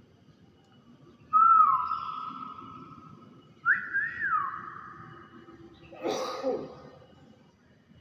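Common hill myna giving two loud whistles, the second starting higher and gliding down, then a short noisy, breathy call about six seconds in.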